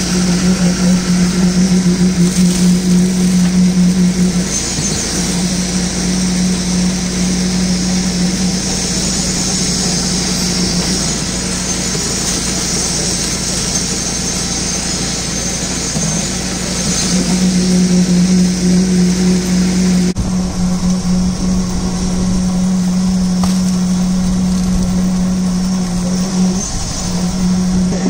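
Internal poker vibrator for concrete running with a steady, loud hum, breaking off briefly a few times, as it consolidates fresh concrete in a footing to drive out air voids.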